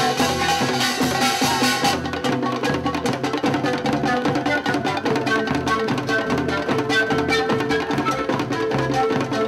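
Live fusion music: Andean panpipes play a melody over Korean barrel drums (buk) and handheld sogo drums beating a steady, dense rhythm.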